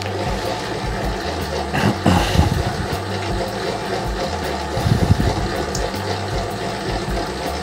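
Famag IM5 spiral mixer running, its spiral hook kneading a wet pizza dough ball into shape. The steady motor noise is joined by a few dull knocks of the dough against the bowl, about two seconds in and again around five seconds.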